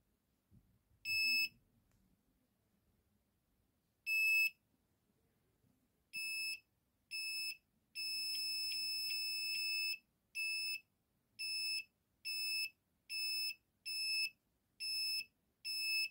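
Homemade long-range metal detector's buzzer beeping in a single high tone as a metal object is held over its search plate, signalling that it detects the metal. A few separate beeps at first, then about two seconds of near-continuous tone, then a steady run of short beeps about one a second.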